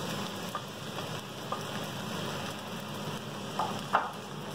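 Rice frying in a steel wok with a steady sizzle as cooked shrimp and vegetables are scraped in off a plate with a spatula, with a few light scrapes and one sharper spatula knock against the wok near the end.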